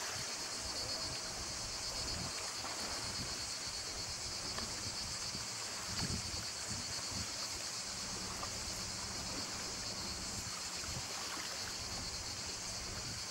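Steady high-pitched buzzing of an insect chorus, over a low uneven rumble of wind on the microphone.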